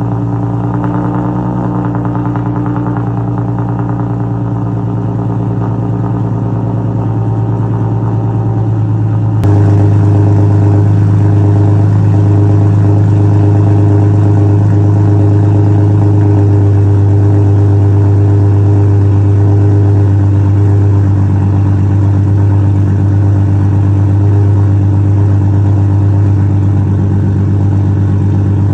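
Straight-piped 3.7-litre V6 of an Infiniti M37x (catless downpipes, muffler and resonator deleted) idling steadily with a deep exhaust note. About nine and a half seconds in, the sound changes abruptly to a slightly louder idle.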